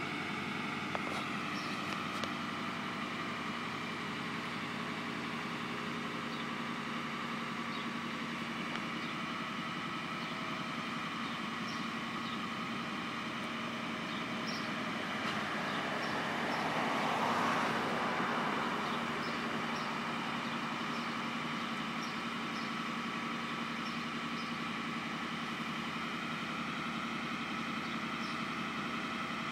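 Crane truck engine running steadily at idle, with a rushing noise that swells and fades about halfway through.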